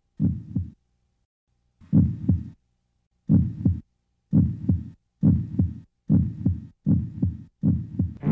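Heartbeat sound effect: eight low lub-dub double thumps, slow at first and quickening to a steady pulse of a little over one beat a second.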